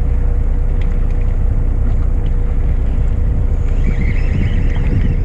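Steady low rumble of the fishing boat's engine running and wind on the microphone, with a faint steady hum. About four seconds in, a brief higher whirr as the baitcasting reel is cranked.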